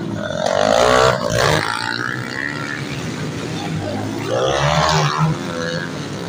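Motocross dirt bike engines revving hard as bikes pass close by, the pitch rising and falling through the throttle changes. There are two loud bursts of revving, one about a second in and another about four and a half seconds in.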